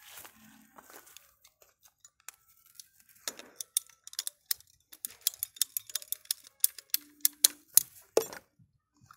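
Gray PVC water pipes being handled, giving a run of sharp, irregular plastic clicks and light knocks, several a second, from about three seconds in until just after eight seconds.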